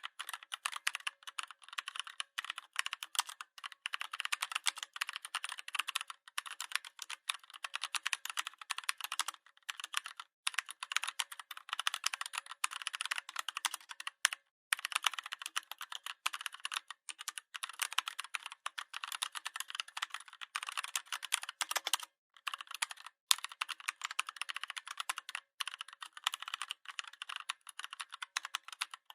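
Continuous fast typing on a computer keyboard: a dense stream of light key clicks, broken now and then by brief pauses.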